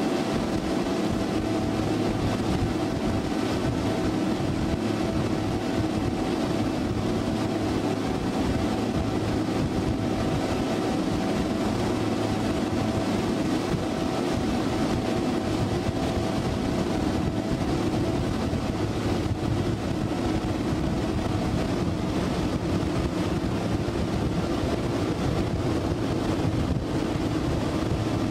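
Four Mercury 250 HO outboard motors on a 39-foot Midnight Express patrol boat running at high speed, a steady, even drone with rushing wind noise over it.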